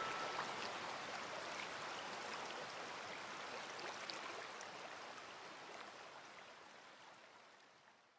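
River water rushing over rocks, a steady wash that fades out gradually to silence near the end.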